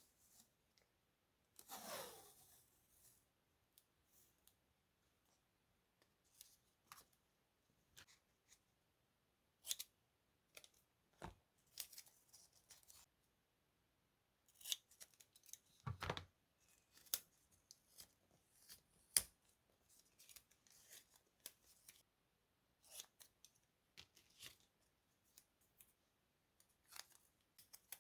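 Scissors cutting paper in short, scattered snips, quiet and close, with a longer rustle about two seconds in.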